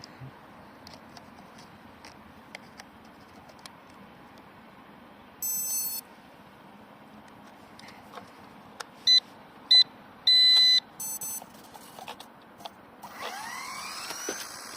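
Electronic beeps as an ERA C032 H-1 Huey RC helicopter is powered up: one long beep about five seconds in, then a run of short and longer beeps about nine to eleven seconds in. Near the end its small electric motor spools up with a rising whine.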